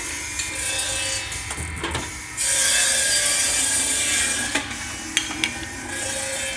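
Automatic wedge saw running and cutting 1½-inch stock: a steady machine run, with a louder cutting hiss of the blade through the material lasting about two seconds starting a couple of seconds in, and a few sharp clicks and knocks from the feed mechanism.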